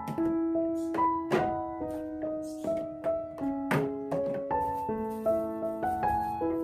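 Background piano music: a melody of struck, held notes.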